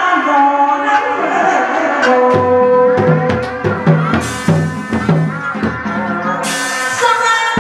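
Hát bội (tuồng) theatre music: a held melodic instrument line, with drumming that comes in about two seconds in and two bright crashes later on.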